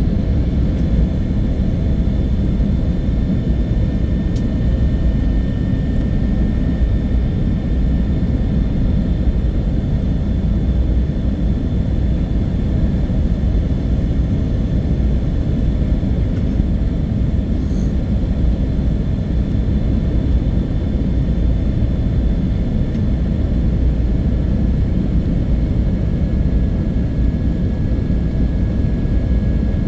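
Airliner on its landing approach at Narita: a steady low rumble of jet engines and rushing air, with faint steady whines above it.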